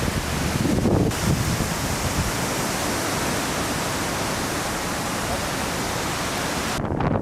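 Wind buffeting the microphone in low gusts, then a steady, even rushing hiss that cuts off abruptly near the end.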